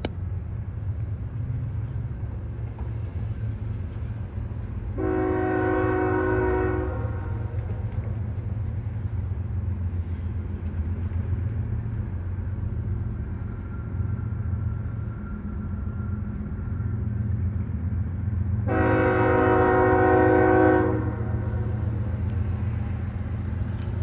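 BNSF 4266 diesel locomotive's multi-chime air horn sounding two long blasts, each about two seconds, the first about five seconds in and the second about two-thirds of the way through. A steady low rumble from the approaching train runs underneath.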